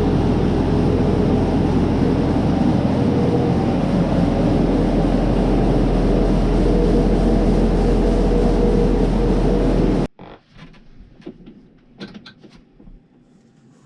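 Loud, steady running of heavy farm machinery with a low hum, cutting off suddenly about ten seconds in, followed by faint scattered knocks and clicks.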